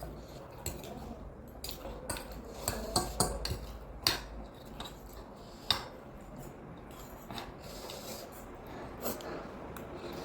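Eating utensils clinking and scraping against a bowl of ramen, with a few sharp clinks between about three and six seconds in.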